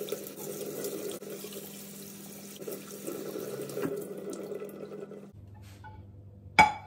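Kitchen tap running, with water splashing over a whole raw chicken as it is rinsed in the sink. The water stops about five seconds in, and a sharp knock near the end is the loudest sound.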